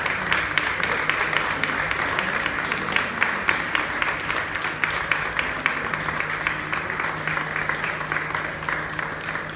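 Audience applauding: many hands clapping in a dense, steady patter that eases off a little near the end.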